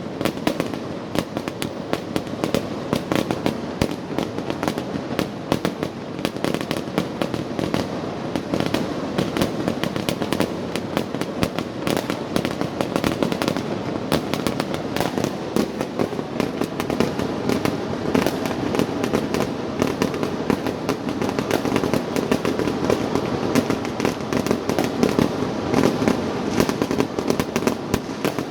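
Fireworks and firecrackers going off in a continuous dense barrage: an unbroken run of rapid sharp cracks and pops with no let-up.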